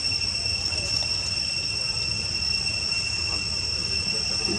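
Steady high-pitched insect drone, one unbroken tone with a fainter higher overtone, over a low rumble.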